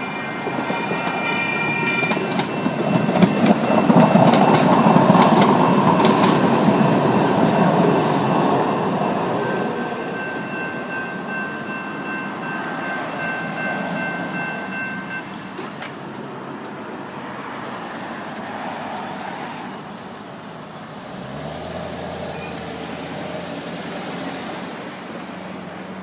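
A train passes through a grade crossing, swelling to its loudest a few seconds in with wheel clicks, then fading, while the crossing's electronic bells ring. The bells stop about two-thirds of the way through, and a car engine is heard near the end as road traffic resumes.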